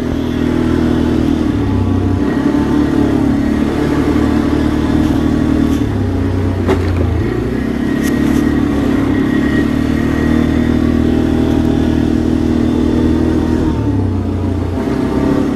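ATV (quad bike) engine running as it is ridden, its pitch rising and falling several times with the throttle. A single sharp knock about seven seconds in.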